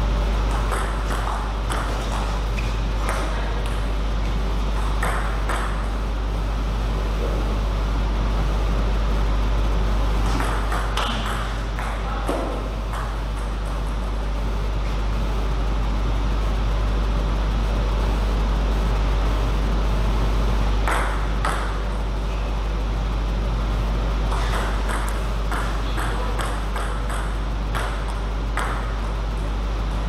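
Table tennis ball clicking off bats and the table in several short bursts of rapid ticks, with pauses between rallies. A steady low hum runs underneath.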